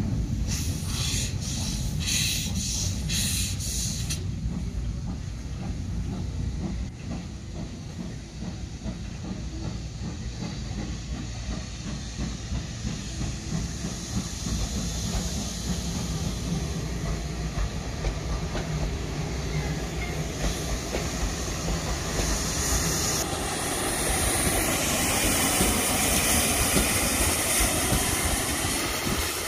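Steam locomotive running, with a few sharp exhaust beats in the first four seconds and a steady rumble, then a loud hiss of escaping steam from about 23 seconds in.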